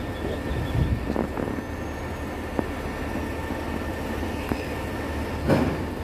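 Concrete mixer truck's diesel engine running with a steady low rumble. A few sharp knocks sound through it, the loudest about five and a half seconds in.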